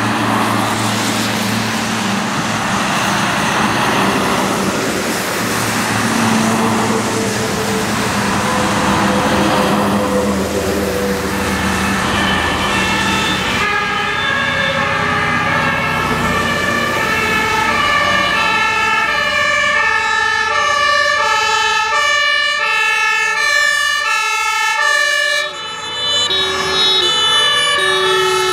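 Fire brigade vehicles pass one after another, engines running and tyres hissing on the wet road. From about halfway in, German two-tone sirens sound, several at once, each stepping back and forth between a high and a low pitch.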